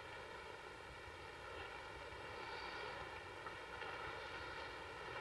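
Faint steady hiss with a low hum underneath: room tone with no distinct event.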